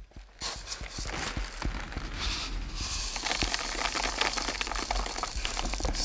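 Clear plastic packaging bags crinkling and rustling in the hands, with dry black rice grains poured and rattling into them as many small clicks and stretches of hiss.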